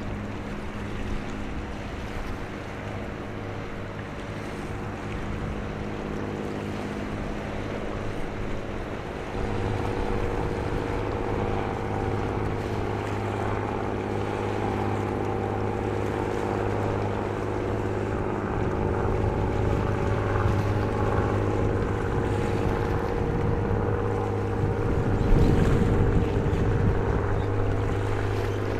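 A passing general cargo ship's diesel engine droning with a steady low hum and several steady tones. It grows louder about nine seconds in as the ship draws closer, over the wash of its bow wave. A brief gust of wind buffets the microphone near the end.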